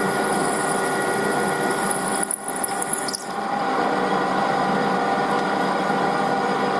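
Metal lathe running steadily while a twist drill in the tailstock chuck bores into the end of a spinning metal bar, with a high cutting whine. A little over three seconds in, the drill is backed out and the whine stops, leaving the lathe's steady running hum.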